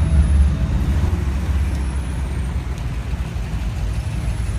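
V8 engines of slow-rolling Corvettes, a steady low rumble as the cars pass close by one after another. It is loudest at the start, as the nearest car goes by.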